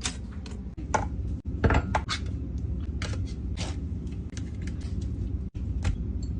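Kitchen cookware and utensils clinking and clattering in a string of short knocks, over a steady low hum.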